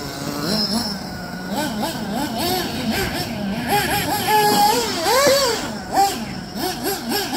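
Nitro engine of a Serpent 811 Cobra 1/8-scale RC buggy being driven, its high pitch rising and falling in quick, repeated throttle blips.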